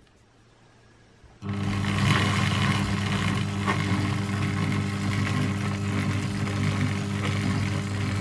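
Electric motor of a dual-spindle glass lathe switching on about a second and a half in, then running steadily with a hum, turning the spindles through roller chains.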